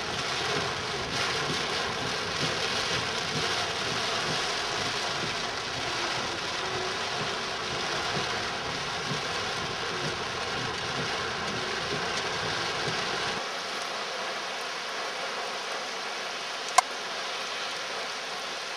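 Steady rush of flowing floodwater, with a low vehicle rumble underneath that drops away suddenly about two-thirds of the way through. One sharp click near the end.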